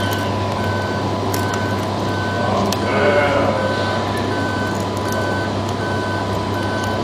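Reversing beeper on an RC construction model, beeping evenly about once every three-quarters of a second over a steady electric hum and background noise. A short pitched call sounds about three seconds in.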